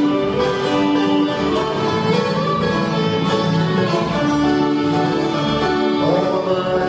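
Acoustic bluegrass band playing an instrumental break: strummed acoustic guitars and banjo under a lead melody of held notes, a fiddle-like line that slides into a new note near the end.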